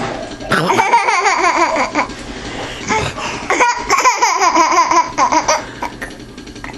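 A young child laughing in two long bouts of rapid, pulsing giggles, the second starting about three and a half seconds in.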